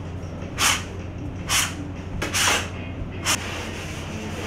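Round metal pastry cutter being pressed and twisted through a floured pastry sheet onto the bench: a short scraping hiss about once a second, with a steady low hum underneath.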